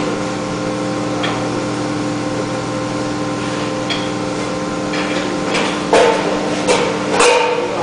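V-grooving (V-cutting) machine for sheet metal running with a steady multi-pitched hum, with a few short metallic knocks and clinks from the sheets being handled. The hum drops away near the end.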